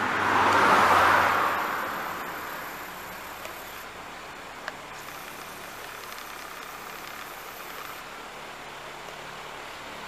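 A road vehicle passing on the adjacent main road, loudest about a second in and fading away over the next few seconds, followed by steady background ambience.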